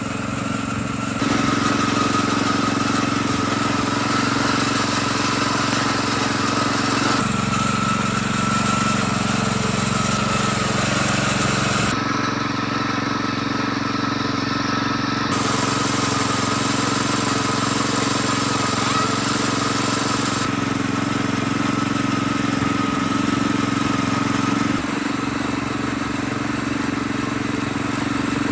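Wheel Horse garden tractor's small pull-start engine running steadily under way, its tone jumping abruptly every few seconds where short clips are cut together.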